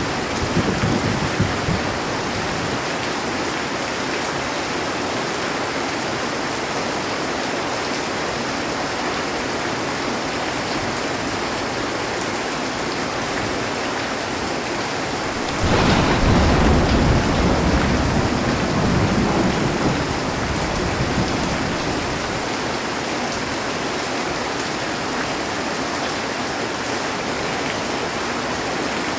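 Heavy rain falling steadily on a metal roof. A little over halfway through, a roll of thunder starts suddenly and rumbles for about five seconds before fading, and the tail of an earlier rumble dies away in the first two seconds.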